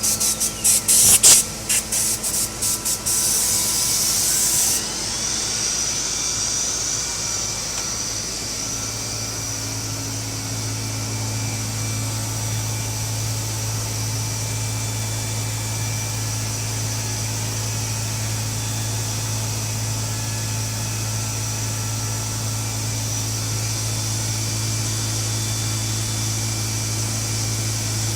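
CNC wood router at work: a rapid series of short hissing bursts in the first few seconds, then a steady machine hum with a faint high whine.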